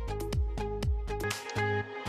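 Upbeat background music with a steady beat: deep drum thumps about twice a second under plucked notes. The low thumps drop out a little past halfway while the plucked part carries on.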